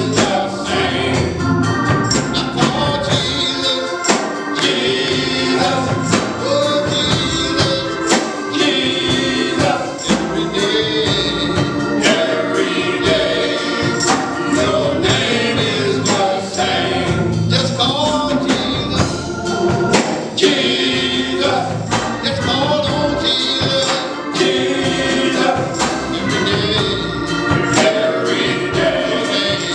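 Live gospel music: a choir singing over a band, with a steady percussive beat.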